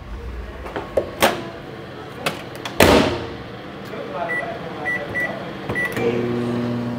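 Built-in microwave oven: four short keypad beeps, then the oven starts up with a steady low hum about six seconds in. A sharp knock comes about three seconds in, before the beeps.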